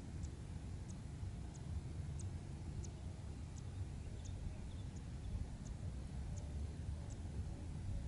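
Wind rumbling on the microphone in open grassland, with a thin, high call repeating evenly about every two-thirds of a second.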